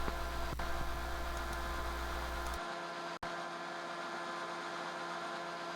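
Steady electrical mains hum with a light hiss. About two and a half seconds in its lowest part drops away, and a single click follows.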